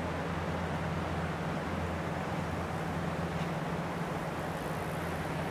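Agusta A109E Power twin-engine helicopter running on the ground with its main rotor turning: a steady drone with a constant low hum under it.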